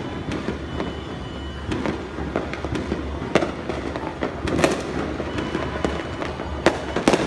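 Aerial fireworks going off: sharp bangs from bursting shells at uneven intervals, over a steady din of more distant fireworks.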